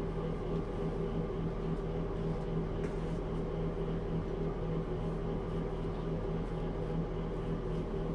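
A steady mechanical hum holding a constant pitch, with a faint click or two.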